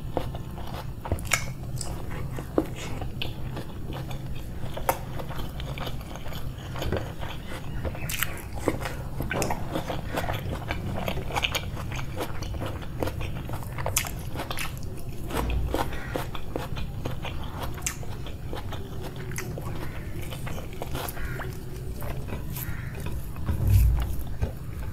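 Close-miked eating: a person biting and chewing food, with many small sharp crunching and wet mouth clicks, over a low steady hum. A low thump comes near the end.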